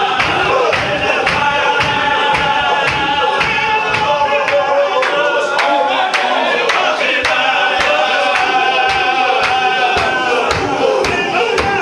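A large group of men chanting together in a Chechen Sufi zikr, many voices in unison over a steady, sharp beat of about two strokes a second.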